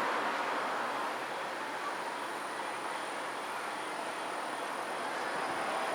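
Steady outdoor background noise like distant traffic, even and unbroken, with no distinct bangs standing out.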